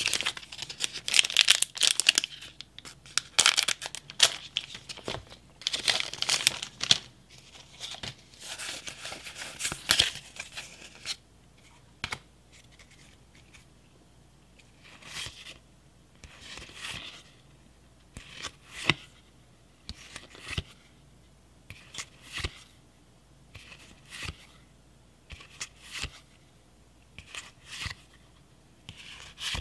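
Foil Pokémon booster pack crinkling loudly as it is handled and opened, for about the first ten seconds. After that, the cards are flipped through one at a time, each move giving a short snap of card stock about every second and a half to two seconds.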